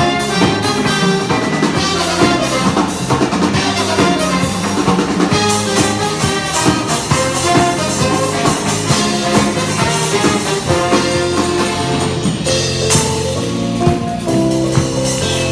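Band music with a full drum kit keeping a steady beat of kick and snare hits under sustained pitched instruments.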